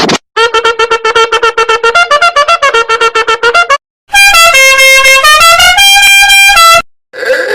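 Meme sound effects played back to back. First comes a fast tune of short repeated notes. After a brief gap comes a horn-like tune of held notes stepping up and down in pitch, and another effect starts near the end.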